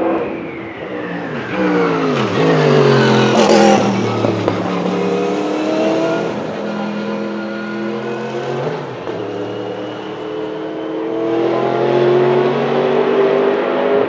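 Sauber-Mercedes C11's twin-turbo 5.0-litre Mercedes M119 V8 race engine slowing into a corner, its pitch falling in steps as it downshifts, with one sharp crack about three and a half seconds in. It then accelerates away through the gears, pitch climbing with a drop at each upshift.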